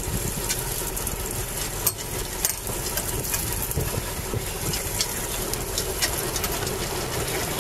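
Fishing boat's engine idling steadily, with a few sharp knocks on the deck as the netted amberjack is brought aboard.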